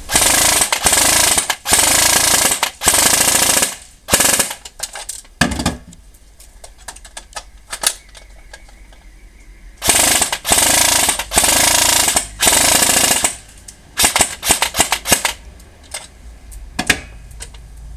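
Custom high-speed G&P M16A3 full-metal airsoft electric gun (AEG) firing full-auto bursts, a very fast mechanical rattle from the gearbox, tuned to about 33 BBs a second. There are several bursts: two long ones at the start, a long one of about three seconds in the middle, and short trigger pulls near the end.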